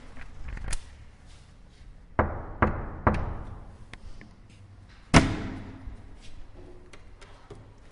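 Three knocks on a door about half a second apart, then a single louder bang of the door about two seconds later, fading out slowly.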